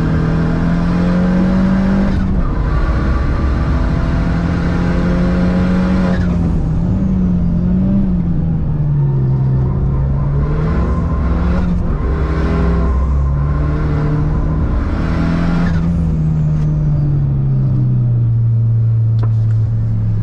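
Car engine pulling hard through a track lap. Its pitch climbs and then drops at gear changes, rising and falling through the corners, and settles to a lower, steady note near the end.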